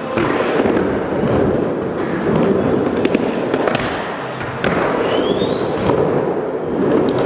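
Skateboard wheels rolling over indoor skatepark ramps, a steady rumble broken by sharp clacks. A brief squeak comes about five seconds in.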